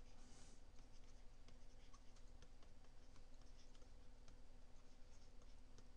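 Faint taps and scratches of a stylus writing by hand on a tablet screen, many small irregular ticks, over a faint steady electrical hum.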